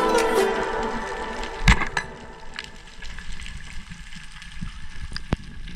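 Electronic background music fading out, giving way to underwater sound picked up through a camera housing: a low, even wash of water with scattered sharp clicks and crackles.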